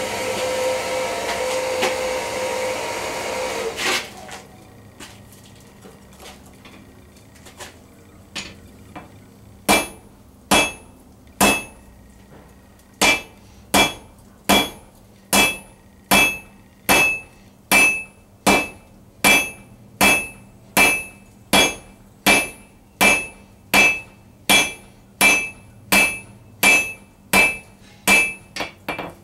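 A forge's air blower runs steadily and cuts off about four seconds in. After a quiet pause, a hand hammer strikes a red-hot round-stock steel bar on the anvil at a steady pace of a little over one blow a second, each blow ringing: fullering the bar down.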